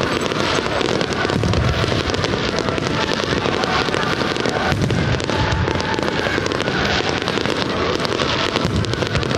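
Aerial fireworks going off in quick succession: dense, continuous crackling from glittering crackle shells, with a few deeper booms of shell bursts mixed in.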